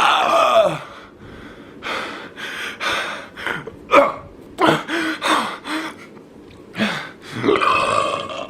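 A boy's deliberate burp falls in pitch and dies away in the first second, followed by a string of short gasps and breaths, and another long burp begins near the end.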